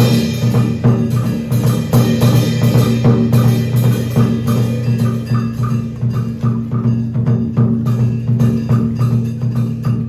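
Traditional Vietnamese music of the kind played live for water puppet shows: quick, dense drum and wood-block strokes over a steady low tone.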